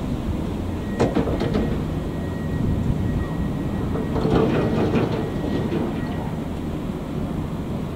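Siemens Eurorunner class 223 diesel-electric locomotive running as it rolls slowly toward the camera, a steady low rumble. Its wheels clack over rail joints and points about a second in and again in a cluster around four to five seconds in, with a faint high whine through the middle.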